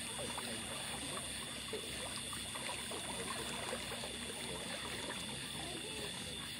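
Pool water gently lapping and trickling around people standing and moving in waist-deep water, over a steady faint background hiss.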